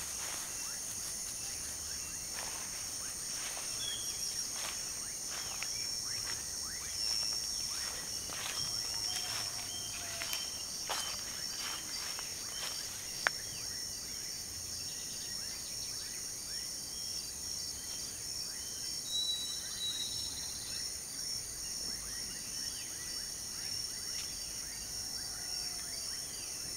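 A steady, high-pitched chorus of insects, with scattered rustling through grass and leaves and a single sharp click about halfway through.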